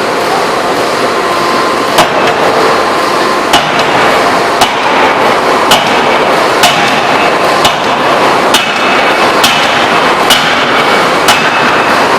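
Electro-hydraulic open die forging hammer striking about once a second, some ten sharp blows with a short metallic ring, starting about two seconds in, over a steady loud machinery noise.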